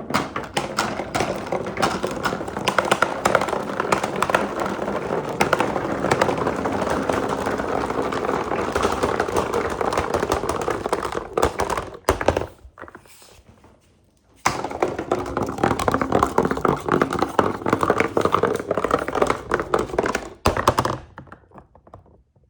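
Marbles rolling and clattering through a marble run of transparent plastic pipes and wooden track pieces, a dense run of clicks and knocks. It goes almost quiet about 12 seconds in, starts again about two seconds later, then thins out and stops near the end.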